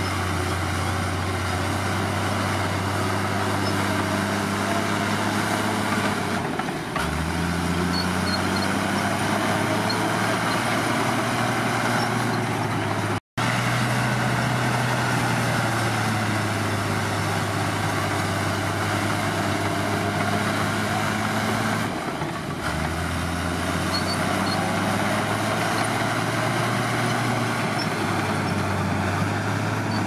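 Komatsu D53P crawler bulldozer's diesel engine running steadily at work. Its note drops lower about 7 seconds in and again about 22 seconds in, and there is a momentary dropout about 13 seconds in.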